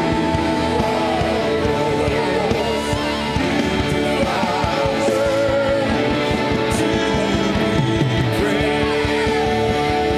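Live worship music: a band with guitar under a singer's voice holding long, wavering notes with vibrato.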